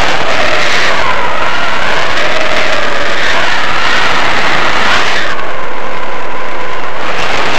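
Wind blasting across a helmet-mounted camera microphone, loud and distorted, with a faint wavering whistle. The rush eases a little about five seconds in.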